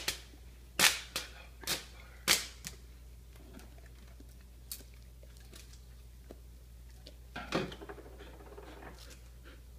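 American Akita puppy licking peanut butter from a jar held to its mouth: a string of wet tongue clicks and smacks, sharpest in the first three seconds, with a louder smacking burst about seven and a half seconds in.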